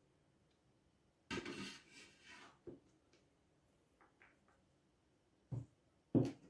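Handling noise: a brief rubbing, scraping sound about a second in, then a few short knocks, the loudest near the end.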